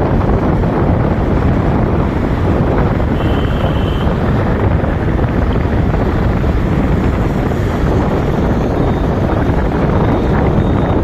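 Wind buffeting the microphone, a loud, steady rumble. About three seconds in, a short high tone sounds for under a second.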